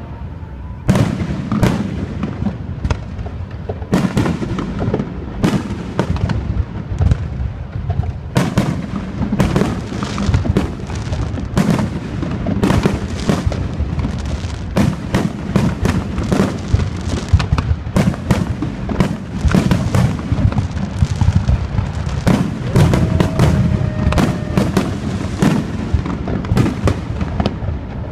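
Fireworks display: a dense, continuous run of sharp bangs and crackles, several a second, over a steady low rumble.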